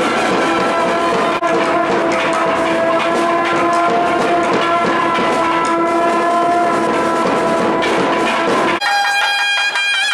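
Temple procession band music: drumming over a held drone and a piping melody. About nine seconds in, this gives way abruptly to a brass horn playing a held note whose pitch wavers and bends.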